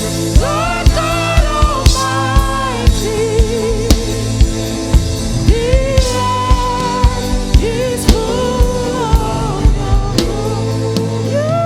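Gospel worship song with a singer's voice over a band: held keyboard chords and a drum kit keeping a steady beat of about two hits a second.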